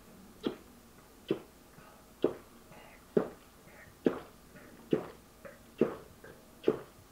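A man gulping down beer from a mug in steady swallows: eight evenly spaced gulps, a little under one a second.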